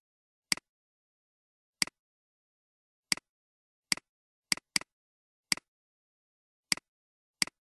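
Computer mouse clicks: nine short, sharp clicks at irregular intervals, each a click followed by a softer second click, with dead silence between them.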